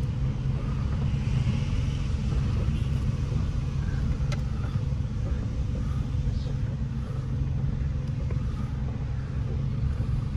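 Steady low rumble of a small car's engine and tyres, heard from inside the cabin as it drives slowly over a rough, broken dirt road. A faint click comes about four seconds in.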